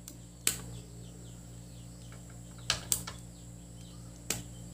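Sharp clicks of a portable radio's switches and buttons being pressed as it is switched on for testing, four clicks in all, two of them close together near the middle. A steady low electrical hum runs underneath.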